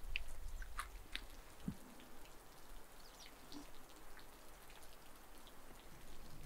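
Metal spoons clinking and scraping against ceramic soup bowls while eating, heard as faint, scattered light ticks and clicks.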